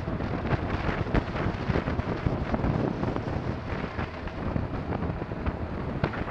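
Wind buffeting the microphone of a riding motorcyclist's helmet camera: a steady rush broken by many short gusts, with the Honda VFR1200's engine running underneath.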